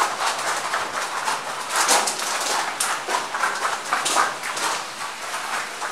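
Footsteps crunching on the gravel floor of a mine tunnel as a group walks, an irregular run of steps about two a second.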